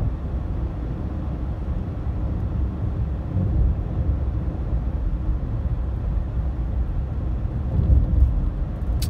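Steady low rumble of a car in motion, heard from inside.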